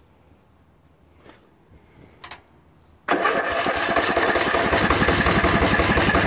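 Riding mower's Briggs & Stratton PowerBuilt 14 hp engine being cranked by its electric starter, a fast even churning that starts suddenly about three seconds in and stops abruptly about three seconds later without the engine catching. A couple of faint clicks come before it.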